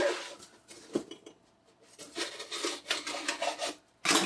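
Cardboard rubbing and scraping as an inner cardboard tray is slid out of a worn cardboard box, with a longer stretch of scraping in the second half and a sharp thump of cardboard near the end.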